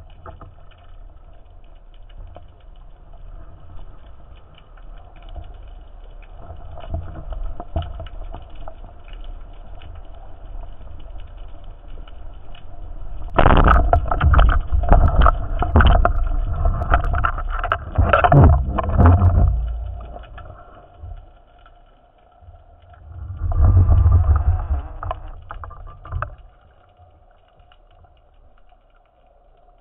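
Underwater sound of a speargun shot: a sudden loud snap about halfway through, then several seconds of loud rattling and churning water noise. A second burst of water noise comes near the end, over a faint steady hum.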